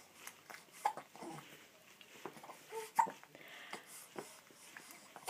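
Newborn baby hiccuping: short, sharp, squeaky hics about every two seconds.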